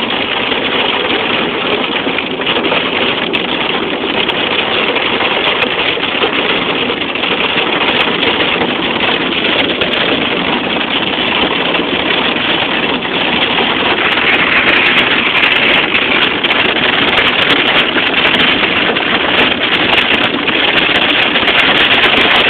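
Hail and rain drumming on a car's roof and windshield, heard from inside the cabin: a dense, steady clatter of many small impacts that grows a little louder and sharper about two-thirds of the way through.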